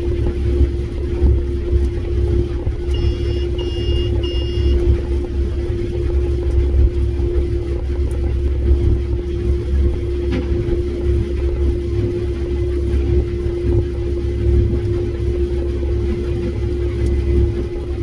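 Combine harvester running while harvesting, heard from inside the cab: a steady low rumble with a constant hum. About three seconds in, three short electronic beeps sound in quick succession.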